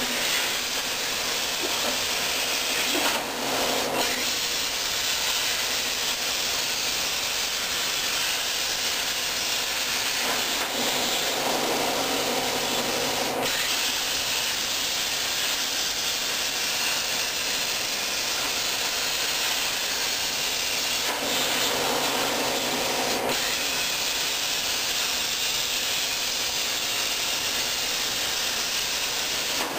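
Miller Spectrum 375 X-treme air plasma cutter on a CNC table cutting 0.040" aluminum sheet: a steady hiss of the plasma arc and air jet, growing louder for a few seconds about three times.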